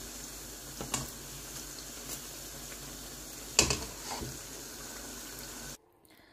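Spinach pakoras deep-frying in hot oil: a steady sizzling hiss, with a few metal clinks of a slotted spoon against the pan, the loudest about three and a half seconds in. The sizzle cuts off suddenly near the end.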